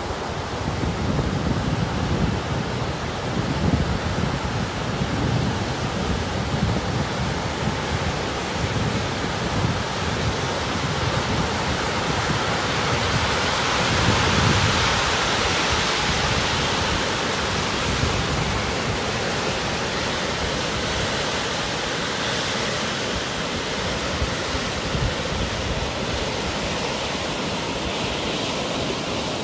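Heavy rainstorm: a steady, dense wash of falling and running water, with uneven low wind noise on the microphone.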